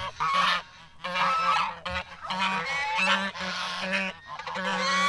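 Geese honking: a run of repeated harsh honks, short and closely spaced, with some calls overlapping.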